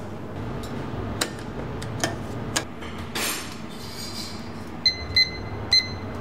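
Three short electronic beeps from a digital kitchen timer as its buttons are pressed, after a few light metallic clinks. A steady kitchen hum runs underneath.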